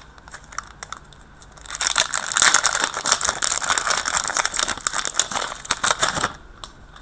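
Wrapper of a 2015-16 Upper Deck Champs hockey card pack being torn open and crinkled. After a few light ticks as the pack is picked up, a dense run of crinkling starts about two seconds in and stops shortly before the end.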